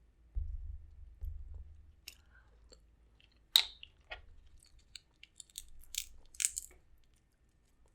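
Close-miked eating of a seafood boil: sharp cracks and crunches of crab shell and wet chewing, with two low thuds near the start. The loudest crack comes about three and a half seconds in, and a cluster of cracks comes around six seconds.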